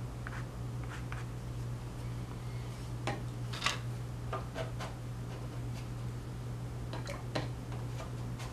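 Steady low electrical hum with a few light taps and clicks of a piece of mat board and painting tools being handled and set down on a tabletop, mostly about three to four seconds in and again near seven seconds.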